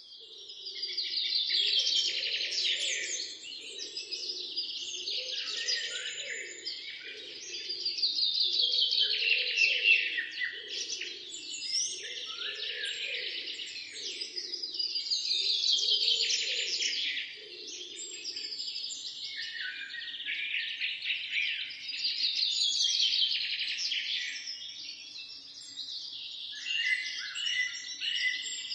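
Birds singing: a loud trilled phrase that falls in pitch comes about every seven seconds, with other chirps between. A lower pulsing call sounds underneath and stops about two-thirds of the way through.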